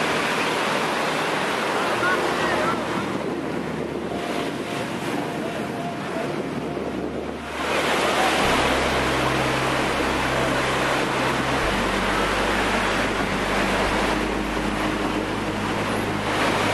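Atlantic surf breaking and washing up the beach, with wind buffeting the microphone. The noise eases for a few seconds and swells again about eight seconds in.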